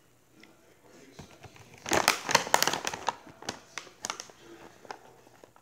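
A plastic Skittles candy bag crinkling as it is handled, a rapid crackly rustle that starts about two seconds in and is loudest for the next second or so before dying away.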